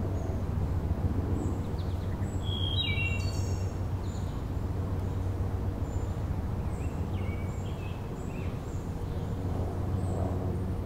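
A wood thrush sings a phrase of a few descending notes ending in a high trill about two seconds in, and a fainter phrase around seven seconds in, over a steady low rumble of distant road traffic.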